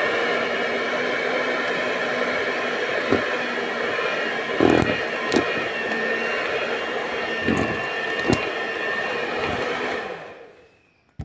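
Electric hand mixer running steadily at speed, its beaters whipping cake batter of butter and eggs in a stainless steel bowl, with a few knocks as the beaters hit the bowl. Near the end it is switched off and winds down.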